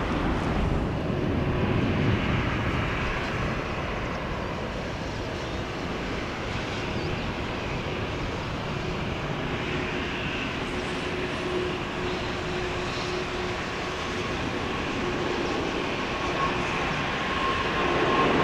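Airbus A340-600's jet engines running, heard as a steady rushing noise with a faint whine in the second half.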